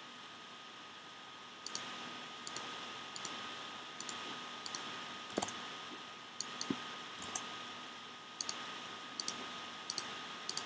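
Computer mouse clicking, mostly in quick pairs of press and release, repeating every half second to a second from about two seconds in, over a faint steady hiss and a thin steady whine.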